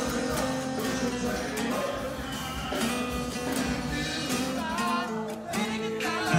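Music with guitar playing continuously.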